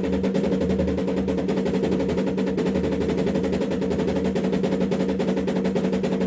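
MakerPi K5 3D printer's motor drive running, a fast steady rattle over a strong hum. The owner is unhappy with the noise: the print bed is hard to move, with a piece of foam packing still caught under the print plate.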